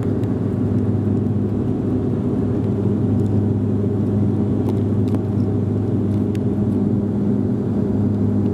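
Cabin drone of a Bombardier Dash 8-Q400 after take-off, heard inside the cabin beside the wing: its Pratt & Whitney PW150A turboprops and six-bladed propellers give a steady, even low hum.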